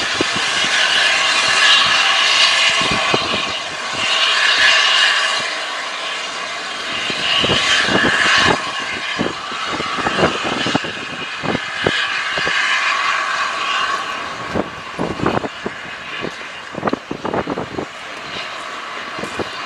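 Passenger coaches of a steam-hauled train running away around a curve: a steady rush of wheel-on-rail noise with high ringing tones that swell and fade every few seconds. From about eight seconds in, the wheels give irregular clicks and knocks over the rail joints.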